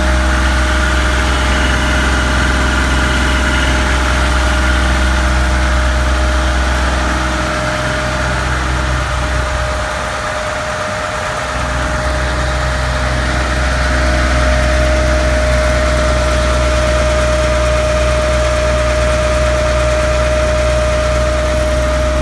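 Kubota diesel tractor engine running steadily, driving a PTO-powered Dayton 15 kW generator that is carrying a whole house's electrical load. A constant deep engine rumble sits under a steady high whine.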